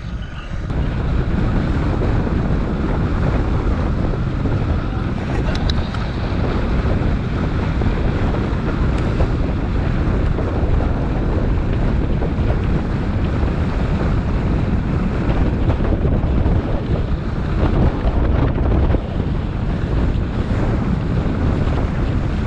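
Wind buffeting the microphone of a camera on a mountain bike being ridden: a steady, heavy low rumble that never lets up.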